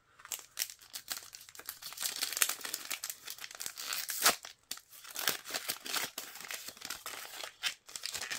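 Crinkling and tearing of a plastic blind-bag packet being torn open and handled, a dense run of crackles with one sharper snap about four seconds in.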